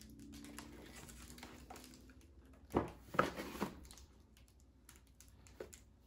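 Quiet handling noises as a robot vacuum is shifted in its foam-lined cardboard box: a faint low hum at first, then a few soft knocks and rustles about three seconds in, and small clicks after.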